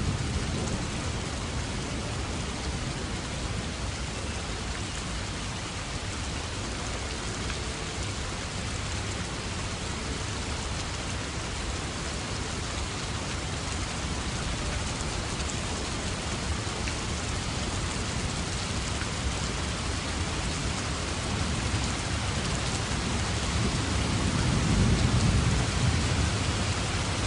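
Steady rain falling, with low rolls of thunder swelling at the start and again near the end.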